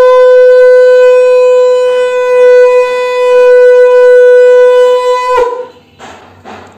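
Conch shell (shankha) blown in one long, loud, steady note that cuts off a little after five seconds, sounded as part of a Bengali blessing (ashirbad) ceremony.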